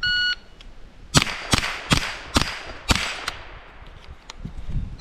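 Shot timer's start beep, then five quick shots from a Ruger 10/22 .22 rimfire rifle, about half a second apart, each with a short ring after it.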